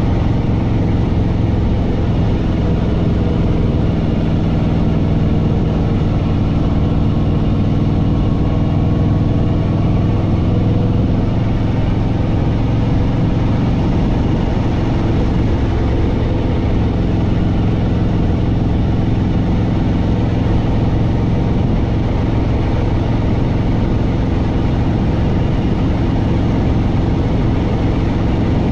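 Harley-Davidson Fat Boy Lo V-twin engine and exhaust running steadily while the motorcycle cruises along at road speed.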